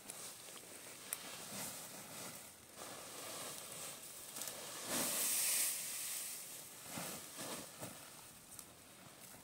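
Dry rustling of straw and dry grass in uneven bursts, loudest and hissiest about five seconds in.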